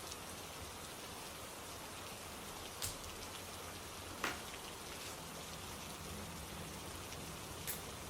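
Steady rain falling, an even hiss, with three sharp louder taps: about three seconds in, a stronger one a little after four seconds, and one near the end.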